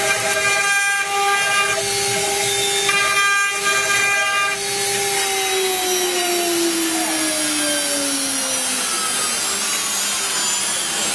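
CNC router spindle whining steadily, with higher-pitched tones that start and stop twice in the first half. From about halfway through, the whine falls steadily in pitch as the spindle winds down.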